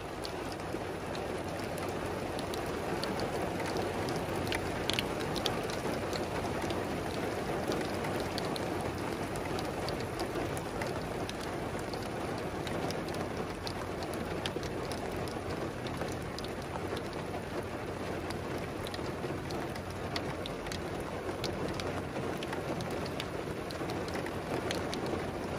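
Rain falling steadily, heard through an open car window, with many scattered sharp drop impacts on the car.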